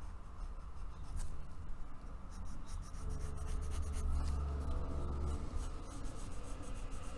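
Pencil scratching on paper in short, repeated strokes as lines are drawn. A low background rumble swells from about three seconds in.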